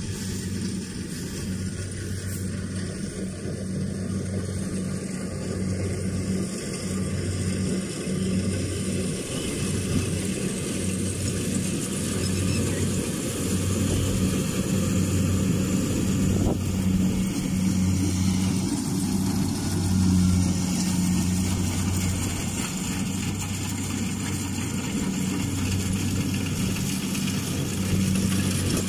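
Kubota DC-68G combine harvester's diesel engine and threshing machinery running steadily under load, getting gradually louder as the machine comes closer while harvesting rice.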